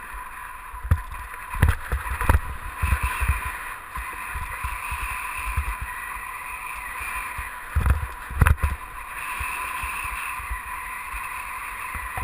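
A rider gliding fast over packed piste snow, heard through a GoPro: a steady sliding hiss from the snow and rushing air, with low thumps and knocks as the rider rides over bumps, loudest about two seconds in and again near eight seconds.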